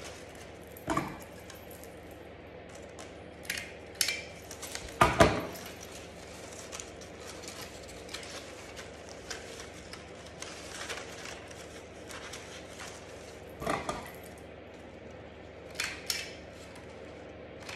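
Handheld stapler snapping shut through folded cardstock: several sharp clicks spread out, the loudest about five seconds in, with the card rustling as it is handled in between.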